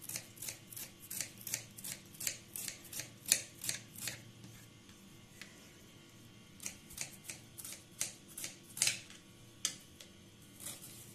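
Kitchen knife thinly slicing a small red onion, the blade tapping on the cutting board about three times a second. After a pause of a couple of seconds midway, the cuts resume slower and more unevenly.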